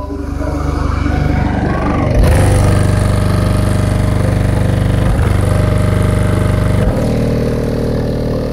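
Deep, sustained bass notes played very loud through a car audio system with six Crescendo Audio Contralto 12-inch subwoofers. The held tones change abruptly about two, five and seven seconds in.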